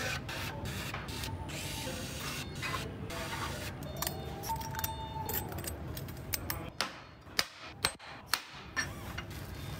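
Small metal clicks and knocks of hand tools and parts being handled on a Mercedes-AMG V8 engine under assembly, over a steady assembly-shop hum. In the second half there is a quick run of about six sharp clicks, and near the middle a brief whine.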